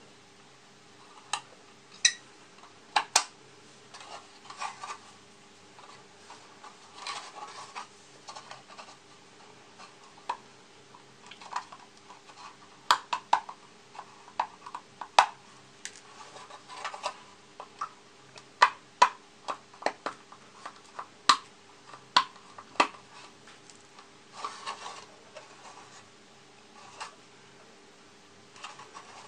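Hobby knife scraping and prying at hard plastic model-kit parts: irregular sharp clicks and snaps with short scraping rubs between them, over a faint steady hum.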